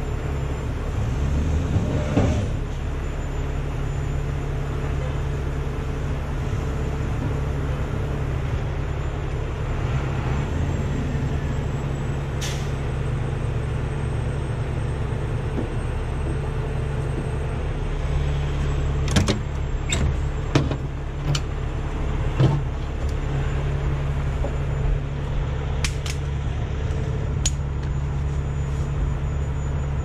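Heavy rotator tow truck's diesel engine running steadily, with a deep, even drone. A few sharp clicks and knocks come about two-thirds of the way through.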